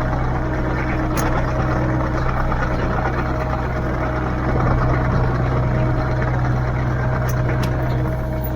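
Kubota KX057-4 mini excavator's diesel engine running steadily, with a few faint clicks about a second in and near the end.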